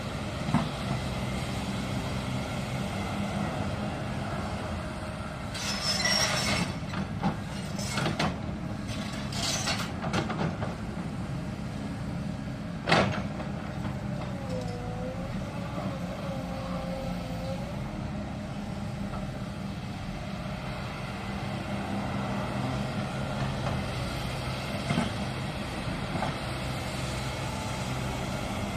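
Excavator's diesel engine running steadily while it digs, with a few short rushing bursts about six to ten seconds in and a single sharp knock a few seconds later.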